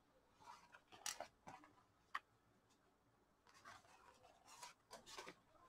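Faint cutting sounds as a piece of EVA foam sheet is cut: a few soft, separate strokes, with a sharper click about two seconds in.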